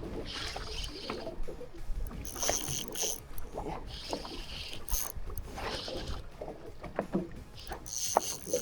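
Water slapping and splashing against a small fishing boat's hull in a choppy swell, in irregular washes every second or two, over a steady low rumble of wind on the microphone, with a few small knocks.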